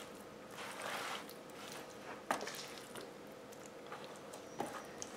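Knife trimming fat off raw chicken wings on a plastic cutting board: soft, wet handling and cutting sounds, with a sharp tap about two seconds in and a fainter one near the end.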